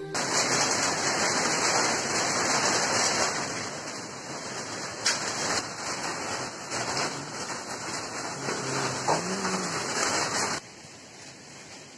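Heavy storm rain pouring down: a dense, steady rush that drops suddenly to a much quieter hiss near the end.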